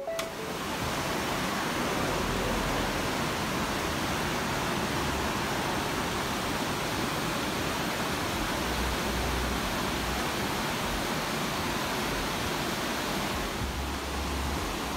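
The Verzasca river rushing over and between boulders in shallow rapids: a steady, even rush of water.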